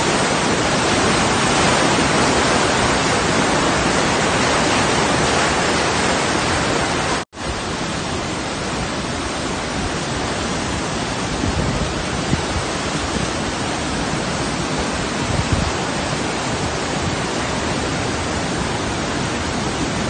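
Snowmelt river rushing over rapids and a small waterfall: a loud, steady sound of white water. It breaks off for an instant about seven seconds in, then goes on slightly quieter.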